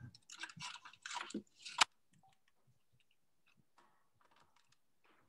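Faint scattered scuffing and rustling noises, ending in one sharp click about two seconds in, then near silence.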